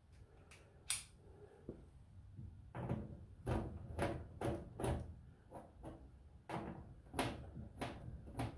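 Hand deburring tool scraping the rim of a freshly drilled hole in a sheet-steel cabinet, a run of short scraping strokes about two a second from about three seconds in. A sharp click comes about a second in.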